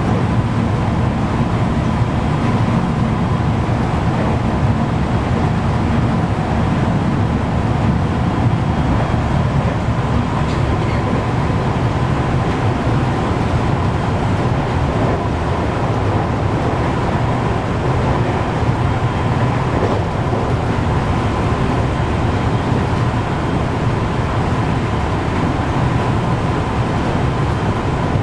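Steady running noise inside a 521 series electric train at speed: a low rumble of wheels on rail with a faint steady high tone over it.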